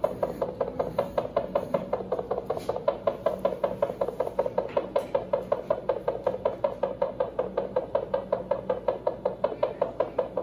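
Patient monitor sounding an anesthetized hamster's heartbeat as a steady, rapid pulse of about five beats a second, roughly 300 a minute, over a low steady hum.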